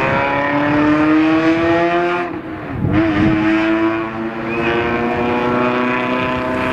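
Rally car engine running at high revs, its pitch climbing steadily, dipping sharply for about half a second about two and a half seconds in, then climbing back and holding high.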